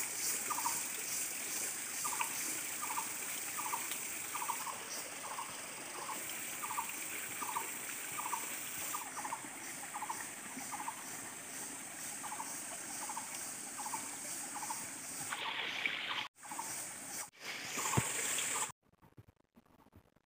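Forest background: a steady high-pitched hiss with a short chirping call repeated about every half second. It drops out twice briefly and stops abruptly near the end.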